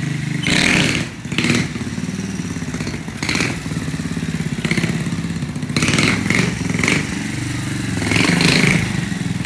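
Small motorcycle engine running with repeated bursts of throttle, the revs rising and falling several times as the bike is ridden on its back wheel in a wheelie.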